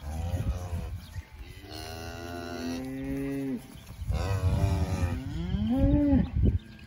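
Black beef cows mooing, about four long calls one after another; the last call near the end rises and then falls in pitch.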